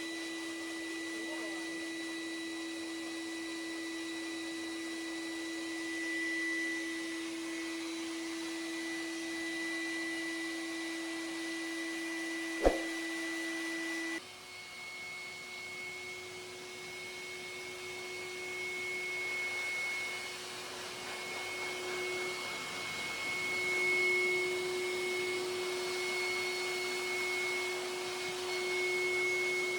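Electric pet dryer blowing, a steady motor whine over rushing air. About halfway through there is a sharp click, and the whine then settles a little higher in pitch.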